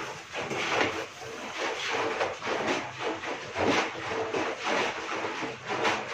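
Plastic sheet rustling and crinkling in irregular bursts as hands press and tuck it around the rim of an aluminium couscoussier, sealing the steamer to the pot.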